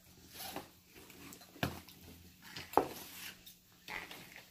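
Scissors cutting and scraping at a cardboard toy box: a series of short rasping cuts with a few sharp snaps, the sharpest a little under three seconds in.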